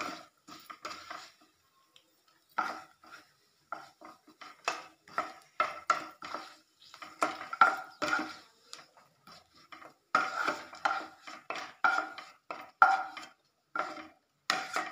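Wooden spatula scraping fried cashew and almond pieces out of a nonstick pan and knocking them off onto a steel plate: a quick, irregular string of scrapes and knocks, each with a short metallic ring.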